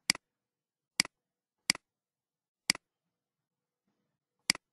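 Computer mouse button clicking five times at uneven intervals, each click a quick double snap of press and release.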